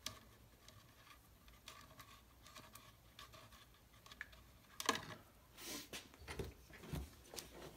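Faint rustling and small ticks of thin hookup wires being twisted together by hand. About five seconds in comes a sharp knock, then a run of louder knocks and rustles as parts are handled and set down on the workbench.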